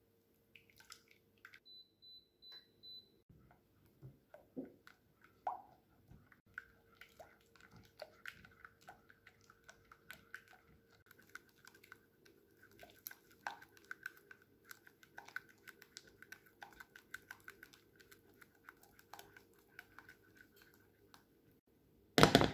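Silicone spatula stirring custard in a saucepan as it thickens into pastry cream: soft, irregular scraping and squishing over a faint steady hum. One loud knock near the end.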